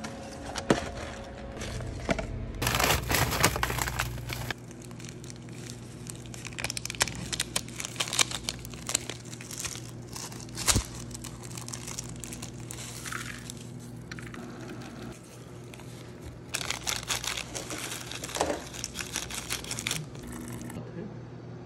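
Crinkling and rustling of instant cup noodle packaging: the plastic wrap and seasoning sachets of a Paldo Kimchi Wang Ttukkeong cup are handled, torn and shaken out over dry noodles, with scattered sharp clicks and taps. The crinkling comes in two denser spells, one a few seconds in and one near the end, over a steady low hum.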